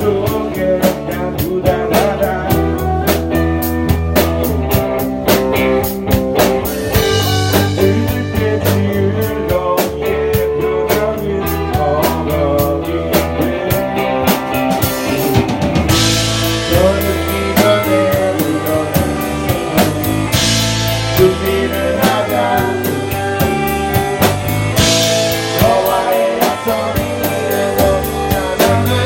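A blues-rock band playing a song, with drum kit, bass and guitar keeping a steady beat under a melody line.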